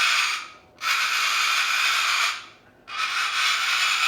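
Cockatoo screaming: long, raspy screams of about a second and a half each, repeated with short pauses between, three in a row.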